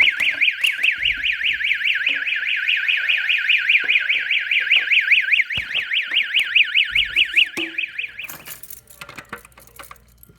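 Pull-station stopper cover's warning siren sounding a loud, fast warble of about five sweeps a second, which cuts off about eight seconds in. The siren warns that a fire alarm pull station is about to be pulled.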